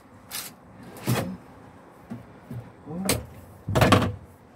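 A camper van's washroom door pushed shut by hand, closing with a loud thump just before the end, after a brief rustle and a few lighter knocks.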